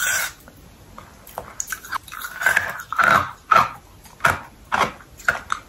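Biting off and chewing frozen grape ice cream from a push-up tube: a string of irregular short biting and mouth sounds.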